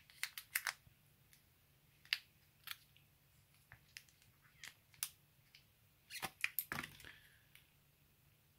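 Light, scattered clicks and rustles of packaging and USB-C earphones being handled and taken out of a phone box, with a denser cluster of clicks about six to seven seconds in.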